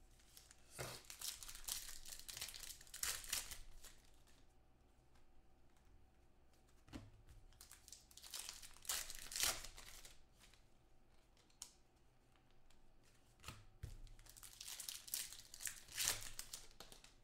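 Trading-card pack wrappers being torn open and crinkled by hand, in three bouts of rustling: about a second in, around nine seconds, and near the end, with a few light clicks between.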